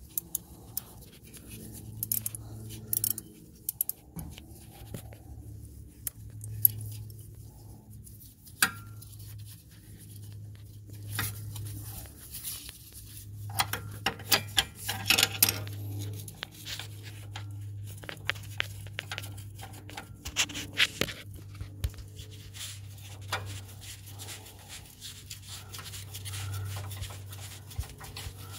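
Hand-tool work on a transmission-mount bolt: scattered metallic clicks and clinks of a wrench and a 14 mm bolt being worked and handled, with a run of quick clicks about halfway through. A steady low hum runs underneath.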